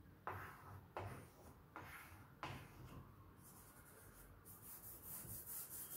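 Faint chalk on a blackboard: four short scraping strokes as small circles are drawn, then from about halfway a quick back-and-forth rubbing as chalk numbers are wiped off the board by hand.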